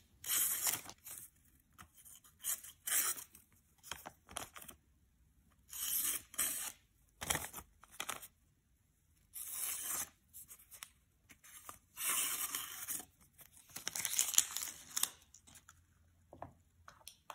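A folding knife's blade slicing through a thin paper receipt in a series of short cutting strokes, each a brief tearing rasp with pauses between: a paper-slicing test of the edge's sharpness.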